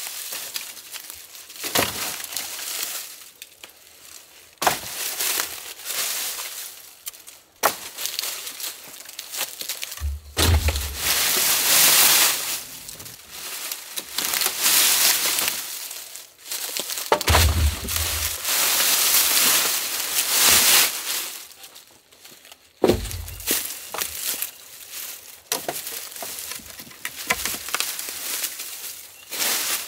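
Dead wooden sticks from an old bushcraft shelter being pulled out, dragged and tossed through dry leaf litter. Long crackling rustles carry sharp snaps and a couple of heavy thuds as the wood lands.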